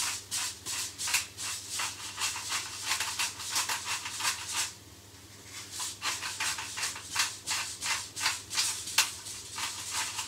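Hand-twisted pepper mill grinding peppercorns over a pan, a fast run of crunching clicks, about three or four a second, with a brief pause about halfway.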